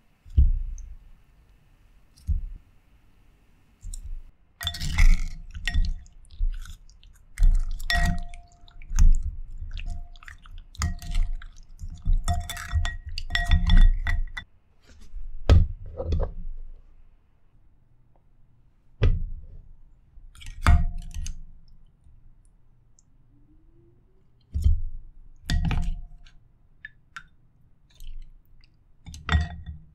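Wooden chopsticks and a wooden spoon knocking against a glass bowl as sauce-coated octopus and quail-egg skewers are stirred and tossed, with wet squishing of the food. The knocks come irregularly, thickest in the first half, and many leave a short ring at the same pitch from the glass.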